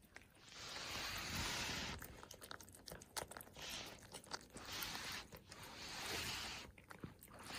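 Persian cats eating wet meat food close to the microphone: soft wet chewing and licking with small clicks, coming in several short spells.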